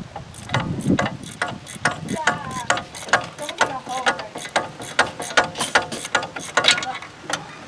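Socket ratchet clicking in quick strokes, about three to four clicks a second, as the 15 mm bolts holding a front wheel hub assembly are backed out.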